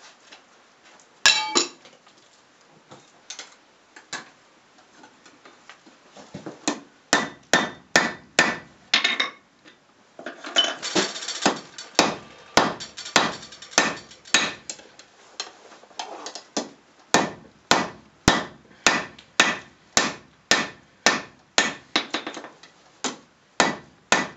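Hand hammer striking a red-hot 1084 steel bar on an anvil, drawing out a knife tang: one sharp strike about a second in, then a steady run of blows about two a second from about six seconds on.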